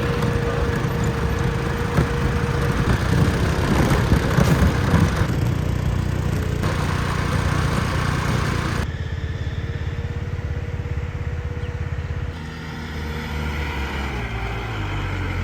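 Engine of a heavily loaded timber truck running steadily as it drives slowly up a steep road.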